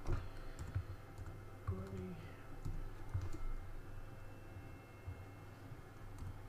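Computer keyboard keys clicking as a few characters are typed, scattered keystrokes mostly in the first half, then fewer over a steady low hum.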